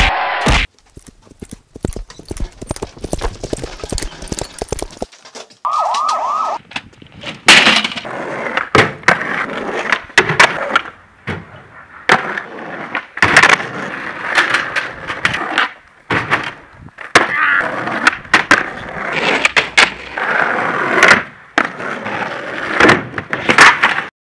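Skateboarding on asphalt: wheels rolling over the rough surface, with many sharp cracks from tail pops and board landings. A short wavering tone sounds about six seconds in.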